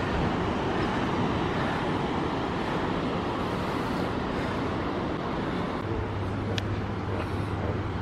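Steady rushing noise of wind and distant surf on a clifftop above the ocean. A low steady hum joins about six seconds in.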